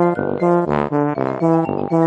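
Upbeat background music: a melody of short pitched notes in a steady, repeating rhythm.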